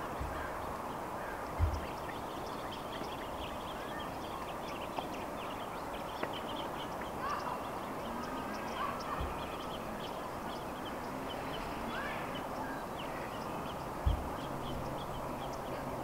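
Steady outdoor background rush with many faint, short, high chirps or ticks scattered through it. There are two dull low thumps, one about a second and a half in and one near the end.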